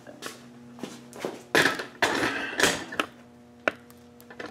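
Handling noise as the camera is picked up and moved: a few knocks and taps, with two longer rustling scrapes about one and a half and two seconds in, over a faint steady hum.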